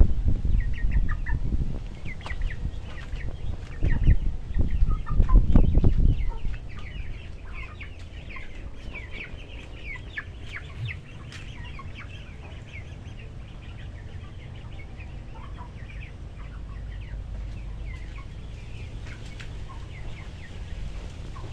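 Domestic chickens clucking, many short high calls scattered throughout. Loud low rumbles fill the first six seconds, then die away.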